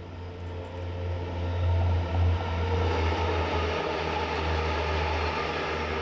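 Diesel engine of an approaching yellow rail engineering vehicle, a steady low drone that grows louder over the first two seconds and then holds, with a rushing rail noise building from about halfway as it draws near.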